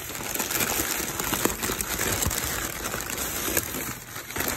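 Packing paper rustling and crinkling continuously as a wrapped item is pulled out of a box and unwrapped by hand.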